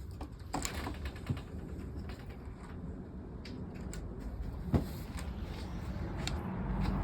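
Irregular light clicks and taps, with one sharper knock nearly five seconds in, over a low steady background hum.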